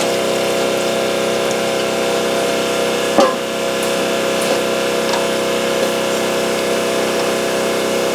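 Steady machine hum with several steady tones, broken by a short knock about three seconds in and another right at the end.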